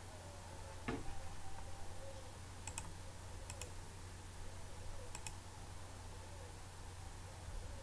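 A few sharp computer mouse clicks spaced a second or two apart, several of them in quick pairs like double-clicks, over a faint low steady hum.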